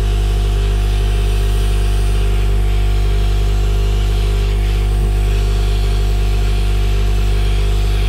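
Hot air rework station blowing on a circuit board: a steady, loud drone of its fan with an even airflow hiss. The air is heating a chip's solder joints to desolder it.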